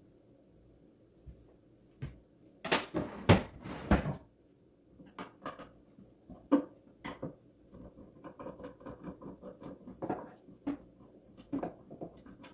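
Wooden drawer being handled: knocks and rattles of the drawer and small hardware, loudest in a burst of clattering about three seconds in, followed by scattered clicks and a run of quick light taps.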